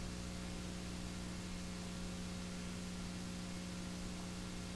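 Steady electrical mains hum with an even hiss beneath it, the background noise of an old TV recording; no other sound.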